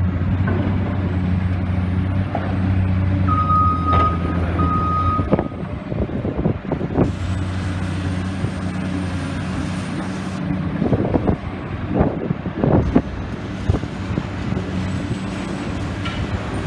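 Demolition excavator's diesel engine running under load, with repeated clanks and knocks of metal and rubble, busiest about two-thirds of the way through. Two short warning beeps sound about three to five seconds in.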